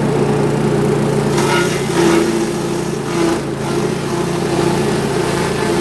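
CM-2000 grass chopper (forage cutting machine) running steadily with a motor hum, with a couple of brief louder surges about two seconds in and again about three seconds in.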